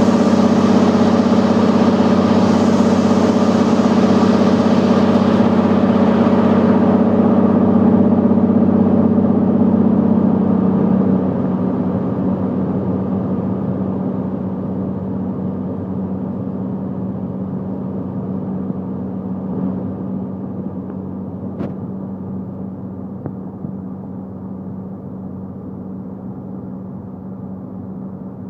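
Cirrus SR22's six-cylinder piston engine and propeller, a steady drone with a strong low hum. About eleven seconds in it drops in level and loses its hiss as power comes back for the descent, then keeps fading slowly. A single sharp click comes about two-thirds of the way through.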